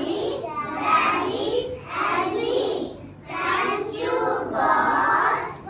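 A group of young children singing together, in phrases about a second long with short breaks between them.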